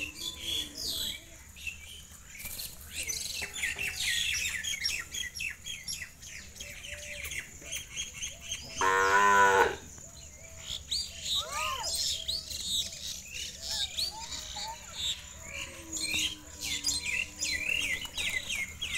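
Many small birds chirping busily, with one loud, quavering call from a farm animal lasting about a second near the middle.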